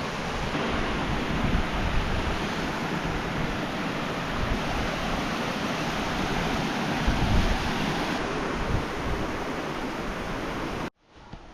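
Steady rushing of creek water flowing through a slot canyon. It cuts off suddenly near the end.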